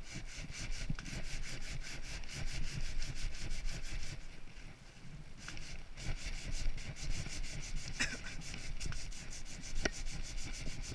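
Hand sanding a piece of wood: abrasive rubbed back and forth in quick scraping strokes, easing off briefly in the middle, with a couple of sharp clicks in the second half.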